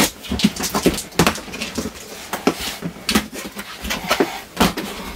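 A box cutter slitting the packing tape on a large cardboard carton, and the cardboard flaps being pulled and handled: a run of irregular scrapes, clicks and knocks.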